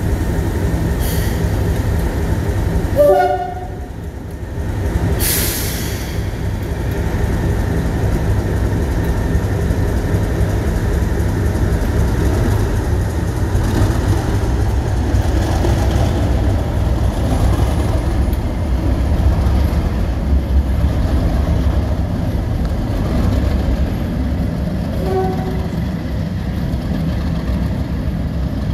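Heritage diesel locomotive running under power, its engine a steady low drone. Its horn gives a short two-tone blast about three seconds in and a brief note near the end, with a short burst of hiss just after the first blast.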